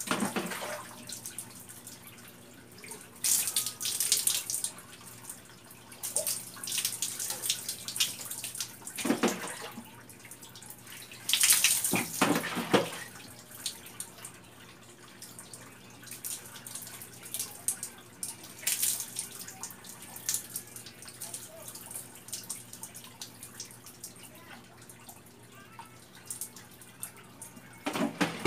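Water being scooped from a bucket with a plastic dipper and poured over the body, splashing onto a concrete floor: several separate splashing pours a few seconds apart, the longest about twelve seconds in.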